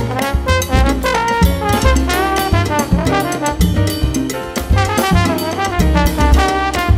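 Big band playing a mambo: trumpets and trombones over drum kit and Latin percussion, with a repeating bass pattern underneath.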